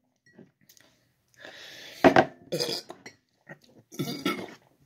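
A man catching his breath after chugging a drink: a hard breath out, then several short throaty gasps and grunts.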